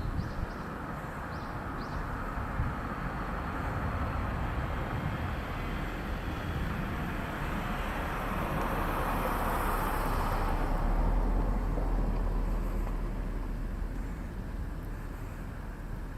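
The rumble of a passing vehicle: a steady noise that swells slowly to its loudest about two-thirds of the way through, then fades.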